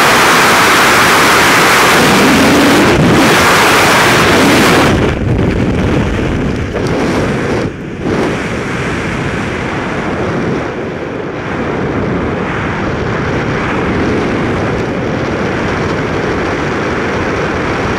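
Freefall wind rushing loudly and steadily over a skydiver's camera microphone; about five seconds in the roar drops off suddenly as the parachute opens, leaving a lower, softer wind noise under canopy.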